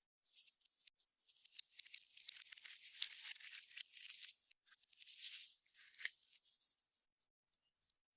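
Slime being stretched and squeezed by hand: a dense crackling of tiny pops and clicks. It swells for a few seconds, breaks off briefly, then comes back and tapers away.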